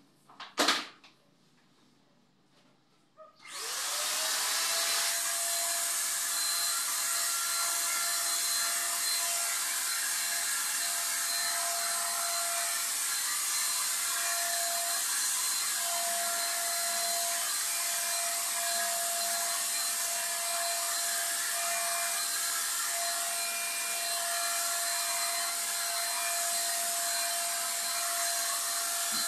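A sharp knock about a second in. Then a handheld electric paint sprayer switches on about three and a half seconds in: its motor spins up briefly and then runs steadily, a constant whine over the hiss of paint spraying.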